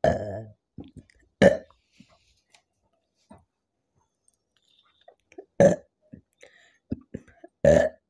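A woman burping four times from carbonated soda: a longer burp at the start, a short one about a second and a half in, and two more near the end.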